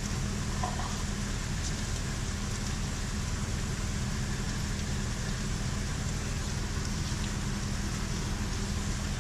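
Steady sizzle of onions and peppers sautéing in olive oil over medium heat, over a low steady hum.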